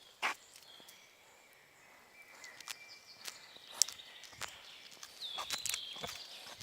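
Footsteps on the forest floor with sharp snaps and crackles of twigs underfoot, the loudest a quarter second in. Small birds whistle and sing in the background, most in the second half.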